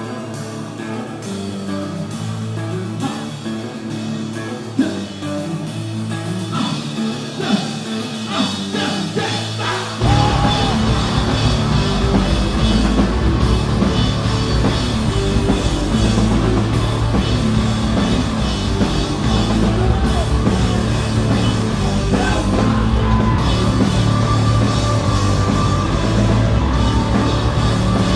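Live indie rock band with electric guitars and drums. For about the first ten seconds the guitars play a lighter build-up with no low end, then the full band comes in with drums and bass, and the level jumps and stays loud and dense.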